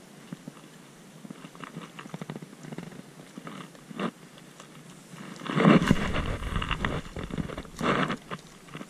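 Spinning fishing reel being cranked to retrieve line, a rapid whirring tick, with rustling handling noise on the body-worn camera. About halfway through, a loud rumbling rustle takes over for a few seconds.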